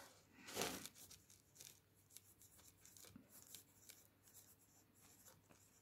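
Graphite pencil writing on a workbook page: faint, short scratching strokes, with one brief louder rustle about half a second in.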